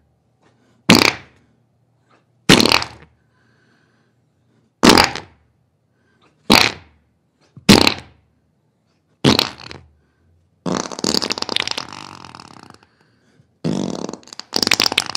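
Farting from an upset stomach: six short bursts, each sharp at the start and quickly dying away, then two longer sputtering ones near the end.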